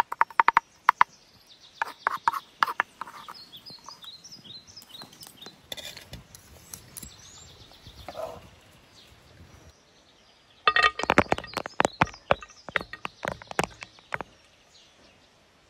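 Knife chopping rapidly on a wooden cutting board, in quick runs of sharp taps that stop and start, with birds chirping faintly in the pauses.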